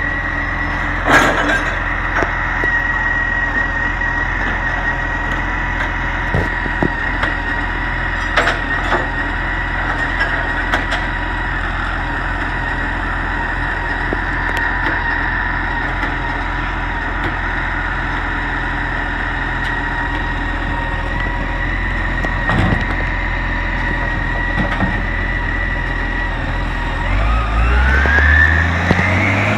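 Dennis Eagle side-loading garbage truck idling with a steady high hydraulic whine while its automated arm tips a wheelie bin into the hopper, with a few sharp knocks. Near the end the diesel engine revs up, rising in pitch, as the truck pulls away.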